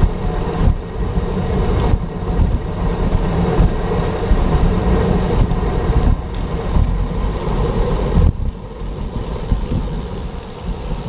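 Wind rumbling on the microphone of a moving bicycle, with road traffic running alongside; the rumble eases about eight seconds in.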